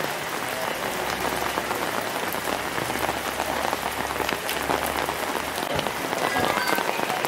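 Steady rain falling, with many small ticks of single drops hitting close by.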